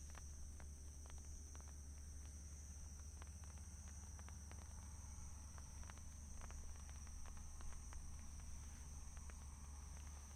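Faint night ambience: a steady, high insect chorus, with a constant low rumble beneath and a scattering of faint clicks.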